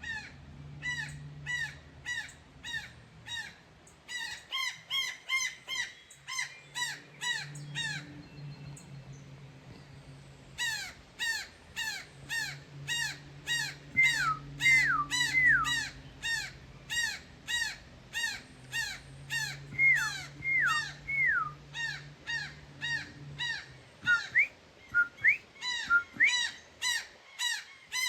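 A bird calling loudly and over and over, short sharp notes at about two a second, with a brief pause partway through. Several falling whistled notes from birds come in around the middle.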